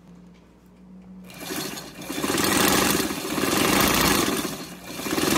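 Singer 127 vibrating-shuttle sewing machine, driven by its belt motor, starts up about a second in and stitches rapidly through a paper towel. Its speed swells and eases a few times as the foot control is worked.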